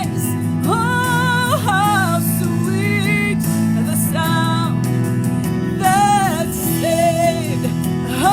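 A slow gospel worship song: a voice sings long held notes with vibrato over steady sustained instrumental accompaniment.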